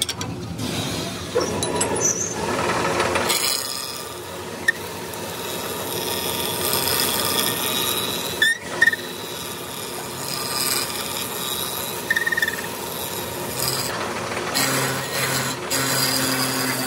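Abrasive grinding wheel grinding the steel teeth of a rotating pinion gear, a steady rasping grind of metal on abrasive. It is shaping the gear's repaired, welded-up tooth.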